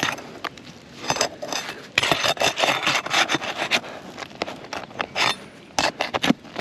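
Scraping and sharp clicks of a tool working under old, stiff asphalt roof shingles to pull out roofing nails, in an irregular run of rasping strokes that is thickest in the middle.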